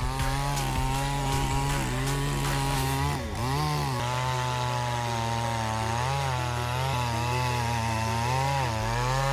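Chainsaw engine running at high throttle while cutting, its pitch holding steady and dipping briefly a few times as the chain bogs down in the wood, the deepest dip about three seconds in.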